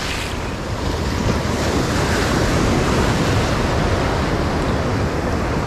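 Surf breaking and washing over rocks at the shoreline, a steady roar, with wind buffeting the microphone.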